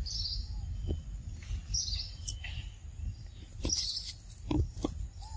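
Forest ambience: short high bird calls repeating about every two seconds over a low rumble, with a few sharp knocks about four and a half seconds in.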